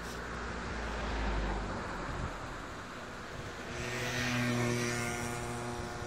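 Steady rush of a shallow river, with wind buffeting the phone's microphone during the first two seconds. About four seconds in, an engine passes close by, its hum and hiss swelling and then fading.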